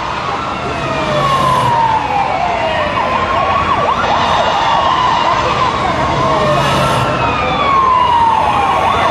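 Concert audience screaming over the show's loud opening soundtrack. Many overlapping high rising and falling wails run throughout, and a siren-like sweep returns about every five seconds.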